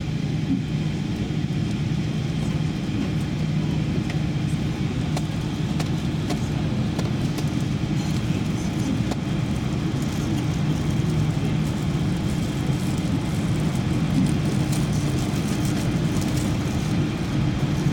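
Steady low drone inside the cabin of an Airbus A380 taxiing, its engines at low taxi power with the air system running, with faint light clicks and rattles scattered through.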